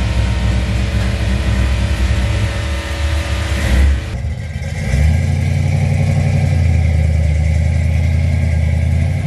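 1968 Chevrolet Chevelle's engine running through its exhaust with a low rumble. It swells briefly a little before four seconds in, then settles into a steady idle.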